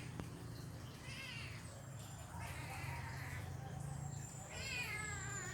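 A cat meowing three times, the last call the longest and loudest with a wavering pitch, over a steady low hum.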